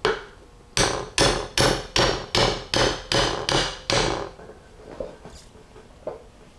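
Brass hammer striking a steel pin in a Powerglide planetary carrier, about ten sharp metallic taps at roughly two and a half a second that stop about four seconds in, driving a planet pinion pin into place. A few faint knocks follow.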